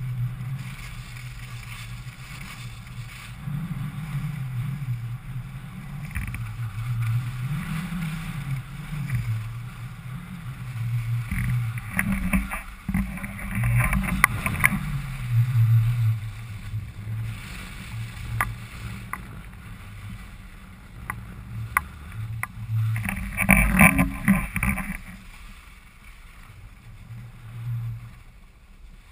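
Skis sliding and scraping over packed snow on a downhill run, with a low, uneven wind rumble on the microphone. The scraping gets louder and harsher twice, about twelve seconds in and again near twenty-four seconds, as the skis carve turns on the firm snow.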